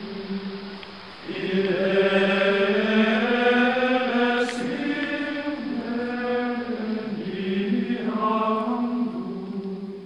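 Background music of slow vocal chanting: long held notes that glide smoothly from one pitch to the next, growing louder about a second in and fading near the end.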